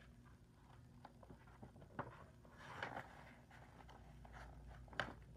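Faint paper rustle of a large picture book's page being turned, with a few soft handling ticks and a sharp click near the end.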